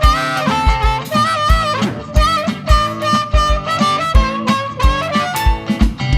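Live blues band playing an instrumental break between sung verses. A lead instrument holds and bends notes over a steady kick-drum beat.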